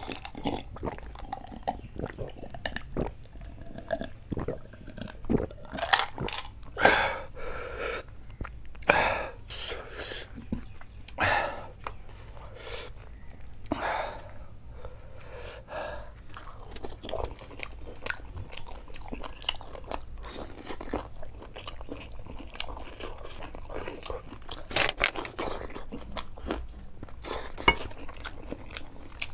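A person eating chicken curry and puri by hand, close to the microphone: steady chewing and biting with loud crunches at several points.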